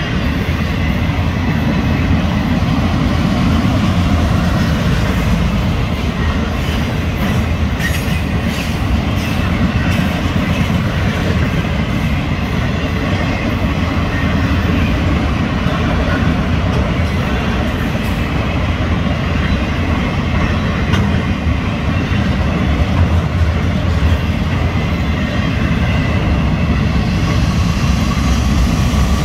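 Florida East Coast Railway freight train's autoracks and boxcars rolling past at close range: a steady, loud rumble of steel wheels on rail, with a run of clacks about a third of the way in.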